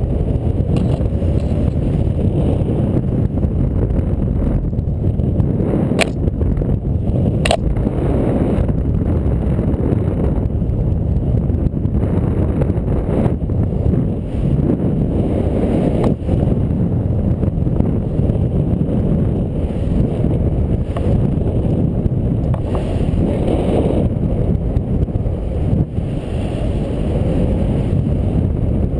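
Airflow buffeting the microphone of a camera worn by a paraglider pilot in flight: a loud, steady low rush of wind. Two short sharp clicks come about a second and a half apart, some six seconds in.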